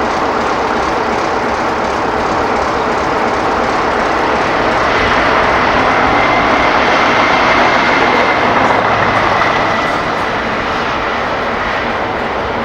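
Class 60 diesel locomotive's Mirrlees engine running under power. It grows louder about five seconds in with a high whistling whine, then eases off again near the end.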